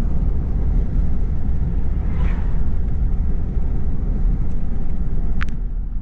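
Steady low rumble of road and engine noise heard from inside a moving car.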